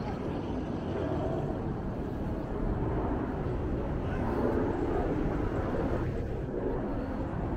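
Outdoor city street noise: a steady low rumble of traffic.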